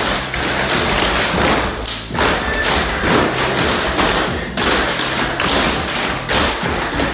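A group of tap dancers' tap shoes striking a wooden floor together: a dense, loud clatter of taps and stomps in quick rhythmic phrases.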